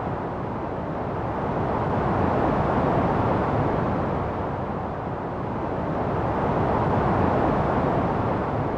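Synthesized white noise from a baby sleep app, shaped toward a deep, muffled rushing hiss. It swells and eases slowly in loudness, about twice.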